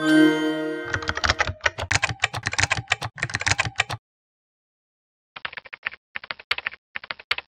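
Computer keyboard typing in fast runs of keystrokes: about three seconds of typing, a pause of over a second, then two more seconds of typing with a couple of sharper clicks. It opens with a short electronic tone lasting about a second.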